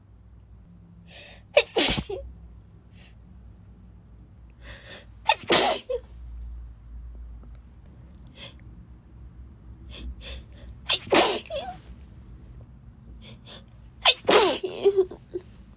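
A woman sneezing four times in a row, a few seconds apart, each sneeze led by short catching breaths.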